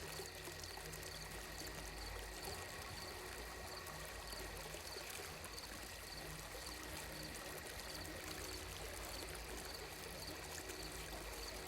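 Ambient sleep soundscape of steadily running water, with faint high chirps repeating evenly a little under twice a second.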